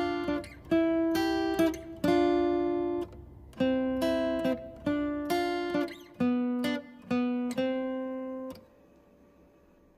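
Background music of plucked acoustic guitar chords, which stops about eight and a half seconds in, leaving near silence.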